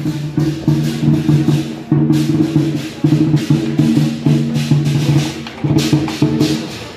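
Temple procession music: a low melody of held, changing notes over drums and sharp wood-block-like percussion strikes.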